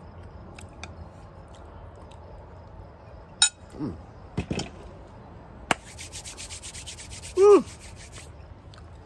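Palms rubbed briskly together, a fast scratchy swishing of about eight strokes a second for a little over two seconds, with a short hum that rises and falls partway through. Before it, a few isolated clicks and short mouth sounds while a mouthful of food is chewed.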